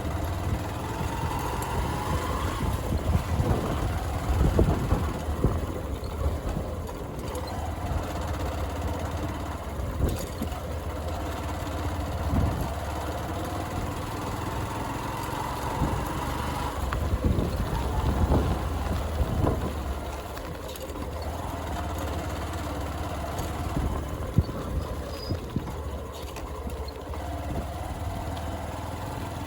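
Motorcycle engine running while riding on a rough unpaved road, with scattered knocks and jolts throughout.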